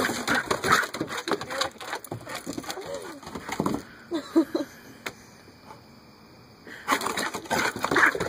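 A Brittany dog scampering on wooden deck boards: rapid clicks and scuffs of its nails, with a few short low grunting sounds from the dog about three to four seconds in. The scrabbling fades to a lull in the middle, then picks up again as the dog rushes close.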